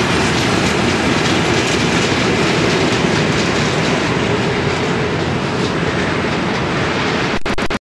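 Freight train of tank wagons rolling past and away, wheels clattering on the track in a steady rumble. The sound cuts off abruptly near the end.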